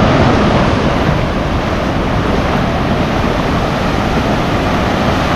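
Ocean surf washing and breaking on the shore, a steady rush of water.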